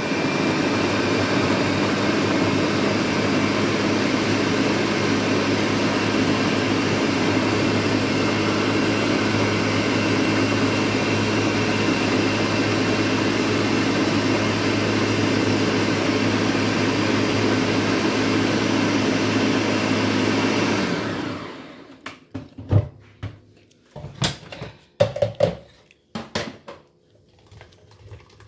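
Ninja countertop blender running steadily at full speed, pureeing chopped star fruit, then winding down with a falling pitch about twenty seconds in. A few short knocks and clatters follow as the blender jug is lifted and handled.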